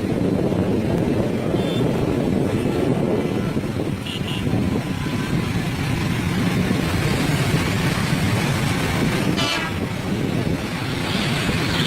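Steady engine and road noise of motor vehicles on the move, with a few short horn toots.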